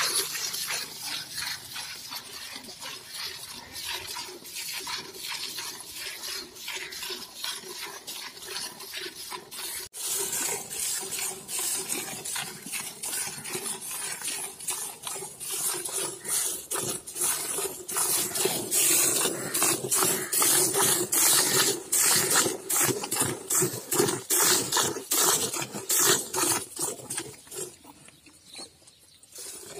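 Hand milking of a cow: jets of milk squirting from the teats into a steel bucket part-filled with milk, in an even rhythm of about two squirts a second. The squirting pauses briefly near the end.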